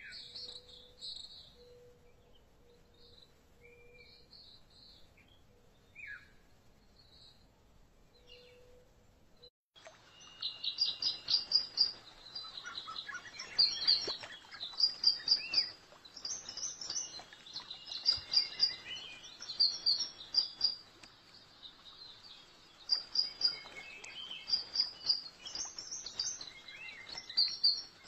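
Birds singing: a few scattered high chirps at first, then about ten seconds in the sound cuts to a denser, louder run of quickly repeated high chirping phrases over a faint steady hiss.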